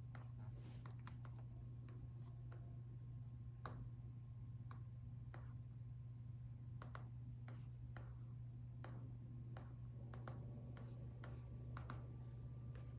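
Laptop keyboard being typed on slowly: sparse, irregular single keystrokes, over a steady low hum.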